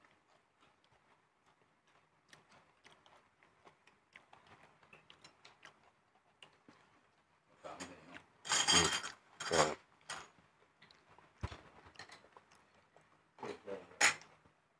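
People eating a meal: quiet chewing with small clicks of spoons and fingers on plates and bowls. A short loud burst of a man's voice breaks in about eight seconds in, with another brief sharp one near the end.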